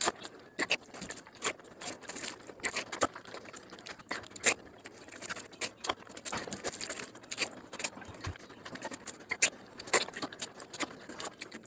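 Close-miked chewing and lip-smacking of a handful of biryani rice, eaten by hand: a steady run of irregular wet clicks and smacks.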